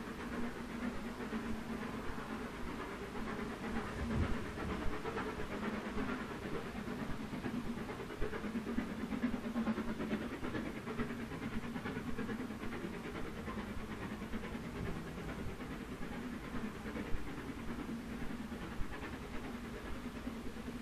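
BR Standard Class 9F steam locomotive working a passenger train, its exhaust chuffing steadily.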